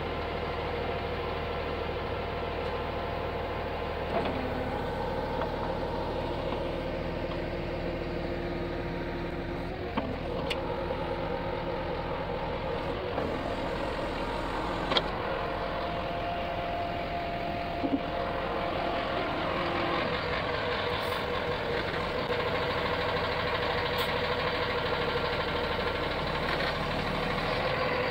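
Truck engine running steadily to drive the hydraulics of a truck-mounted knuckle-boom crane at work, its tone changing every few seconds as the crane moves. Three sharp clicks are heard along the way.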